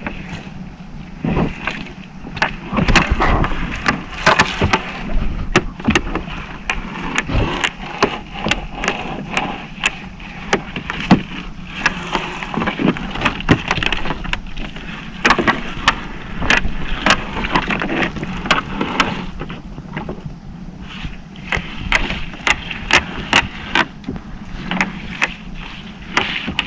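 Steady low hum of a small fishing boat's engine, with frequent sharp, irregular knocks and clatter on deck as a crab gillnet is hauled aboard.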